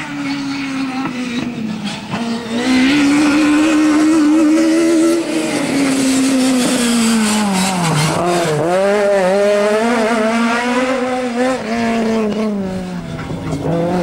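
Rally car engines at full throttle, revving hard through the gears as the cars pass. Around 8 s the pitch drops sharply as a car brakes and shifts down for a corner, then climbs again in quick steps as it accelerates away.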